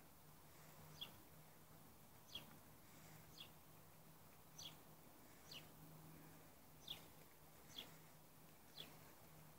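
A bird chirping faintly outdoors, a short falling note repeated about once a second, over a faint steady low hum.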